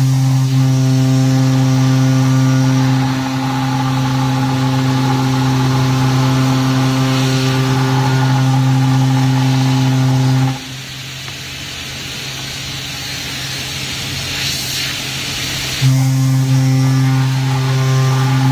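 CNC router spindle milling through 4 mm aluminium plate: a loud, steady buzzing tone with many overtones from the cutter in the metal. The tone breaks off about ten and a half seconds in and comes back about five seconds later, over a constant hiss.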